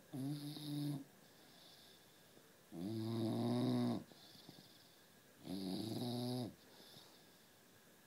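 Sleeping bulldog snoring. One snore ends about a second in, then two more follow, each lasting about a second and spaced a couple of seconds apart.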